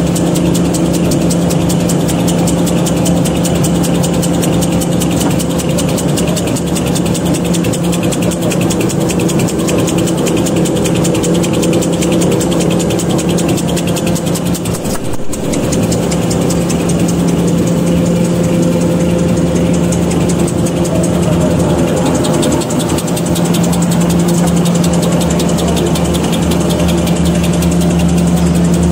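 Automatic three-lane V-fold hand towel paper machine with glue lamination running: a steady hum under a rapid, continuous mechanical clatter from its rollers and folding mechanism.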